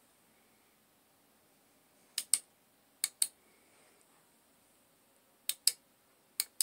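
Push-button switch of a rifle-mounted Tacfire tactical flashlight clicking in pairs, a press and a release each, four times at uneven intervals as the light is flashed on and off.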